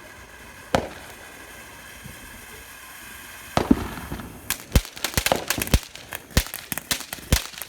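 Consumer fireworks going off: a single sharp crack about a second in, a low hiss, then a loud bang at about three and a half seconds followed by a rapid, irregular string of pops and cracks.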